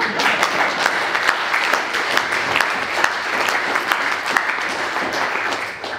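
Audience applause: many hands clapping steadily, dying away near the end.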